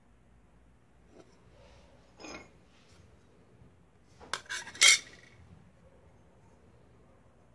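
Thin aluminium sheet pieces knocking and clinking against each other as they are handled, with a short scrape about two seconds in and then a quick cluster of sharp metallic clinks a little past four seconds, the last one the loudest.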